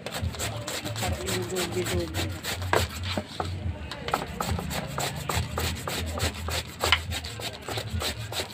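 Green papaya being grated by hand on a flat metal grater over a stainless steel bowl: quick, repeated rasping strokes.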